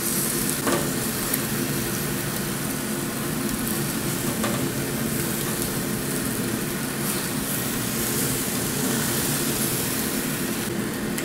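Barbecue-sauced pork ribs sizzling steadily on a stovetop grill grate, over a steady low hum.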